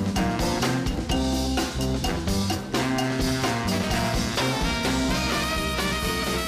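Upbeat swing-style band music with a steady drum-kit beat under bass and held chords.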